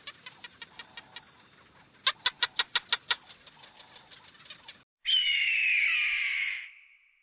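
An animal chirping: a quick series of short, sharp, high chirps, about six a second and strongest in a run of seven near the middle. After a cut, a single longer, louder call that falls in pitch and fades out.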